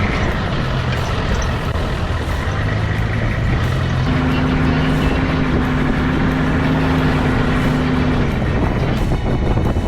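Nissan Patrol GQ's TD42 diesel engine running steadily as the truck drives, with continuous engine and road noise.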